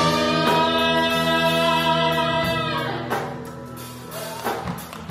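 Live band with electric guitars, saxophones, drums and a singer at a microphone, holding one long note together for about three seconds. The band then drops back quieter, with a few separate drum hits.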